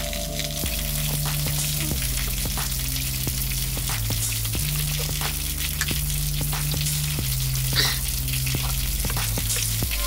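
Background music of low sustained bass notes that change every second or so, under a steady hiss with scattered small clicks. A brief, brighter tick comes near the end.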